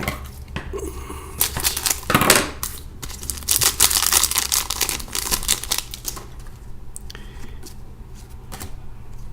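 A hockey trading-card pack being opened and its cards flicked through by hand. There is a dense run of wrapper crinkling and card clicks for the first few seconds, then only scattered clicks.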